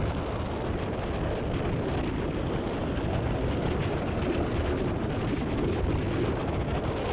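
Wind blowing across the microphone: a steady noisy rush, heaviest in the low end.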